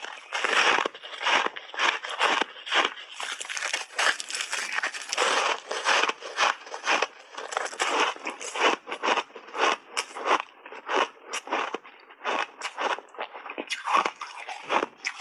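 Powder-coated block ice being bitten and chewed close to a lapel microphone: dense, irregular crunching and crackling, several crunches a second.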